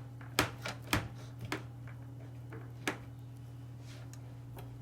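A few sharp, irregular clicks and taps from handling wires and small tools while joining the stereo's black wire to the power supply's ground wire, over a steady low hum.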